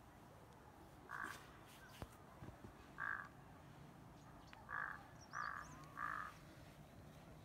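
Five short, harsh animal calls, spaced about one to two seconds apart, with a few faint high bird chirps among them.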